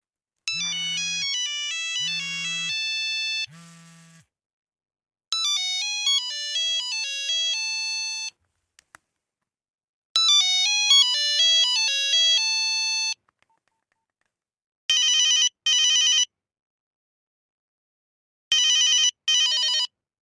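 Nokia mobile-phone ringtones played one after another. First come three short melodies of electronic stepped notes, each about three seconds long; the first has a low buzz under it. Then a double-ring pattern sounds twice, like a telephone bell.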